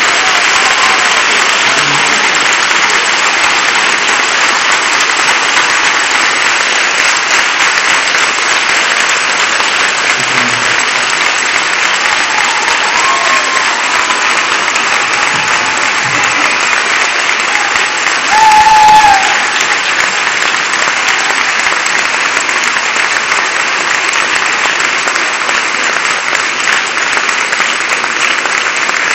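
Audience applauding steadily and at length, a dense even clatter of many hands, with a brief louder moment about two-thirds of the way through.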